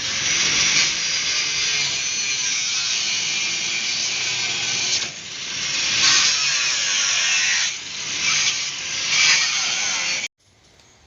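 Power tool cutting sheet steel: a loud, steady high-pitched hiss with two brief dips in the work, cutting off suddenly near the end.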